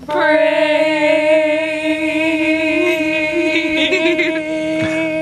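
A woman's voice holding one long, steady sung note with a slight waver, with a little laughter coming in a few seconds in.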